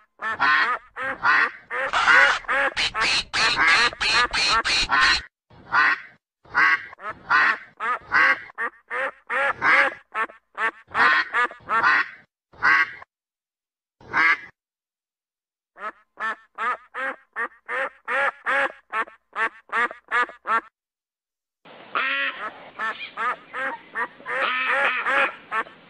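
Mallard ducks quacking in quick runs of short calls, several a second, with a few brief breaks. Over the last few seconds many ducks are quacking at once.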